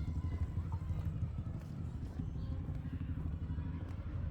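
Outdoor street ambience on a walk: a steady low rumble with faint voices of passers-by.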